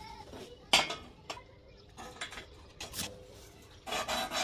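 Steel flat bar clinking and knocking against a steel angle-iron bending jig and its pins as it is set in place: a few separate sharp metallic knocks, the loudest a little under a second in, then a short louder noisy burst near the end.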